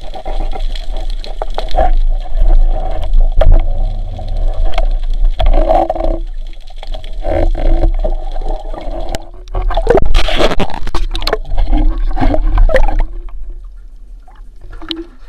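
Water gurgling and sloshing close to the microphone, with scattered knocks; it eases off near the end.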